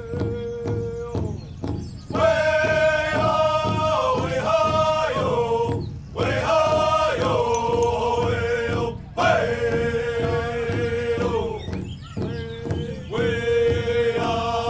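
A group of male voices chanting a song in long held vocables over a steady drumbeat of about three beats a second, in the style of a Native American drum song.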